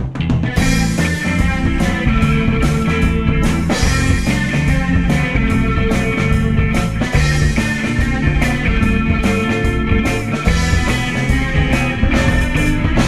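Rock band playing an instrumental passage, with rhythm and lead electric guitars, bass and a drum kit keeping a steady beat.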